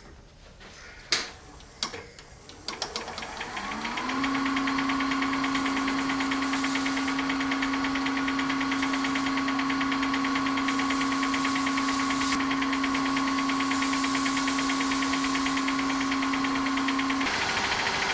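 Wood lathe starting after a couple of sharp clicks, its motor whine rising in pitch for about a second and then running steadily, with a hiss as a cloth is held against the spinning resin-and-burl orb to polish it. Near the end the whine drops out while the hiss goes on.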